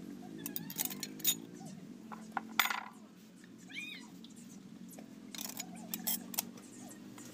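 Steel parts of a disassembled excavator hydraulic swing motor clinking against each other and the housing as they are handled: scattered sharp metal clinks, the loudest about two and a half seconds in, and another few between five and six and a half seconds.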